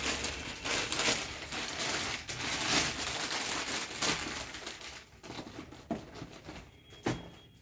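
Gift wrapping crinkling and rustling as a present is handled and unwrapped. It dies down about five seconds in, leaving a few light clicks.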